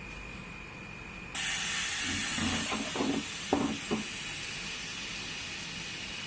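A steady hiss of air from a screen laminating machine that starts suddenly about a second in, with a few short knocks between about two and four seconds in.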